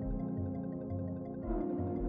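Ambient synthesizer background music: held chords over a soft bass pulse, moving to a new chord about one and a half seconds in.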